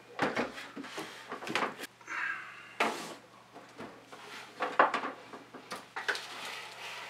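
Plastic-wrapped speaker cabinets and a stereo head unit being set down and shifted on a wooden table: scattered knocks and thuds, the sharpest just before five seconds in, with crinkling of the protective plastic film.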